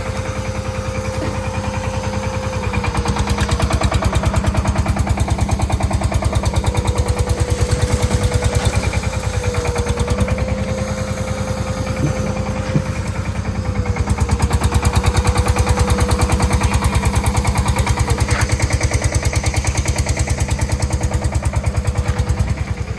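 An engine running steadily, with a fast, even pulsing and a steady hum whose pitch dips slightly a few times.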